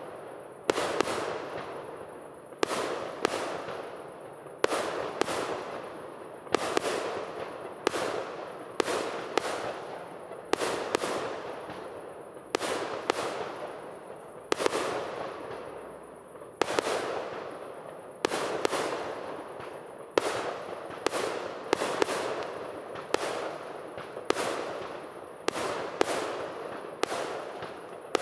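Aerial firework shells bursting one after another, about one bang a second, each bang followed by a rolling echo that dies away before the next.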